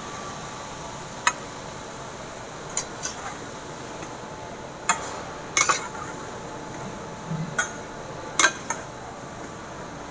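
A metal utensil clinking against a cooking pot or pan, with about ten sharp, irregular clinks over a steady background hiss.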